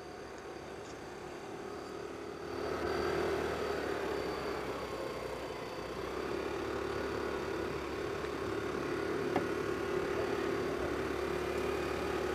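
Motor vehicle engine running steadily on the road, getting louder about two seconds in and then holding a steady hum.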